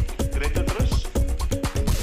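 Background dance music with a quick, steady beat and a repeating melody.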